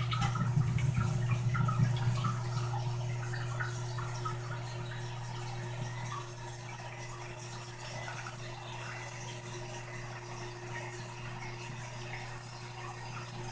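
Tail end of a toilet flush: water gurgling and trickling in the bowl, dying away over the first several seconds. A low steady hum stays underneath.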